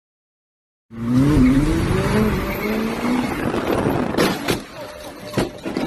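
About a second of silence, then a car running hard: the engine revs with a wavering pitch while tyres squeal as a red sports car slides sideways close past. A few sharp knocks follow in the second half.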